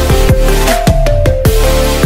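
Background electronic dance music with heavy bass notes that drop in pitch on the beat, under sustained synth notes.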